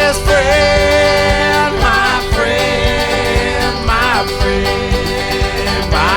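Live acoustic band playing a bluegrass-style country song with a steady beat, between sung lines; long held notes slide into pitch every second or two.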